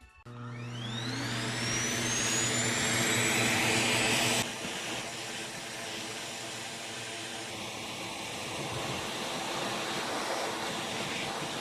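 Electric vacuum cleaner switched on, its motor spinning up with a high whine that rises and then holds. Its sound drops abruptly about four seconds in and then runs on steadily.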